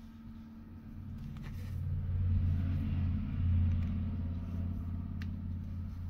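A low engine rumble with a steady hum, swelling from about a second in to its loudest a couple of seconds later, then slowly easing.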